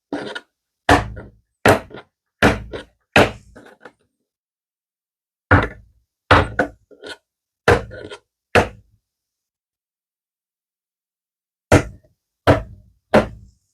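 Mold of freshly poured resin being tapped down on the work surface to bring air bubbles up: about thirteen sharp knocks, roughly one every three-quarters of a second, in three runs with pauses between.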